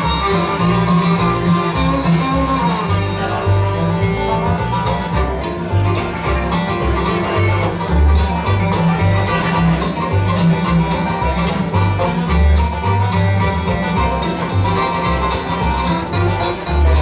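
Live bluegrass band playing: fast banjo rolls and acoustic guitar picking with fiddle over a walking upright bass line.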